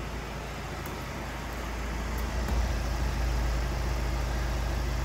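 Steady low rumble with an even hiss over it, getting somewhat louder about two seconds in.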